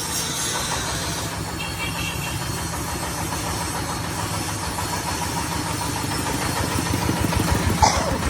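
Corn sheller's 30 hp Dong Feng single-cylinder diesel engine running steadily with a fast, even low beat. A brief sharp sound with a quick falling pitch cuts in near the end.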